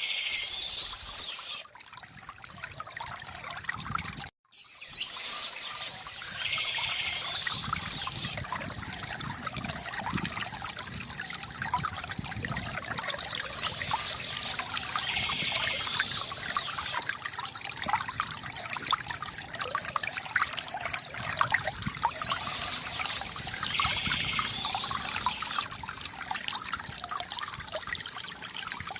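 Shallow stream trickling and babbling steadily, with a songbird singing the same short phrase about every eight seconds. The water drops out briefly about four seconds in.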